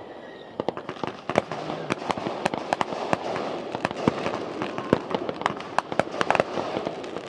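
Aerial fireworks bursting: a rapid, irregular string of sharp bangs and pops throughout.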